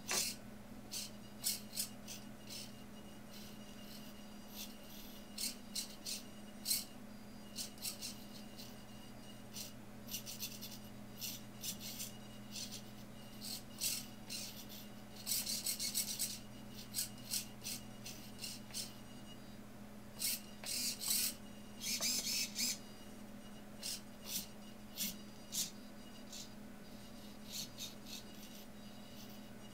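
Hobby servos of a small radio-controlled pan-and-tilt mount whirring in many short, irregular bursts, with a few longer runs, as the puppet head pans, tilts and cocks sideways. A steady low hum runs underneath.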